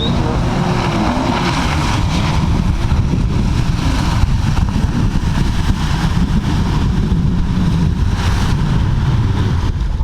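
Jet ski running under way at speed, with wind buffeting the microphone and rushing water masking most of the engine.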